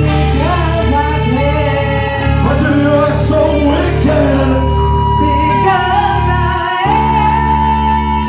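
Live rock band with electric guitar, bass and drums playing loudly while a woman and a man sing through the PA. A long held note rings through the second half.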